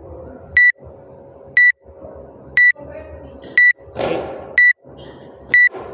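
Electronic timer beeping: a short, high beep once a second, about six in a row, evenly spaced over low gym background noise.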